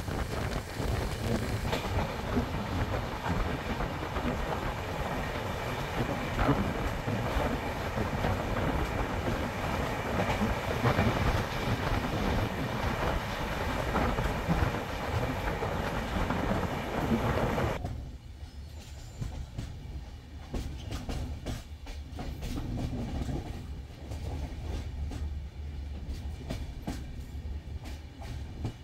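Passenger train coaches running along the track, wheels clattering over rail joints under a steady rush of track and wind noise. About eighteen seconds in, the sound drops abruptly to a quieter, muffled rumble with the wheel clicks still coming through.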